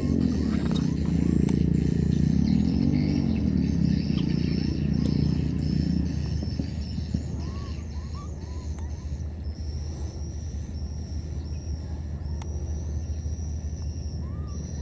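A motor drones loudly, wavering in pitch, for the first six seconds or so, then fades, leaving a steady low hum. A high, steady buzz that keeps breaking off and starting again runs on top, with a few short chirps.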